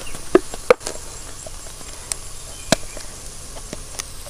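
Onion-and-capsicum masala frying in a pan: a low steady sizzle with scattered crackles and pops, about seven of them, two louder than the rest.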